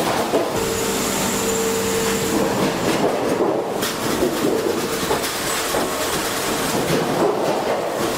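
Sawmill production-line machinery running with a continuous rattling clatter. A steady hum with a high whine over it stands out from about half a second to two and a half seconds in.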